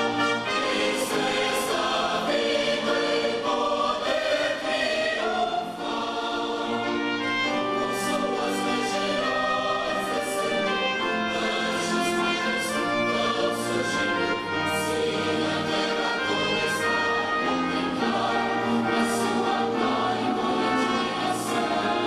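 Large mixed choir singing a sacred piece with orchestral strings (violins and cellos) accompanying, sustained full chords throughout.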